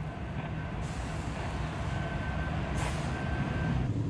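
Norfolk Southern SD60E diesel-electric locomotives running past close by, a heavy low engine rumble with smoke at the exhaust showing the engines under load. A short hiss of air comes about three seconds in.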